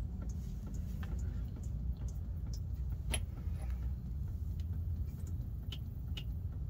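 Gear oil trickling from a rear differential's drain hole into a plastic drain pan, with scattered light ticks and a click about three seconds in, over a steady low rumble.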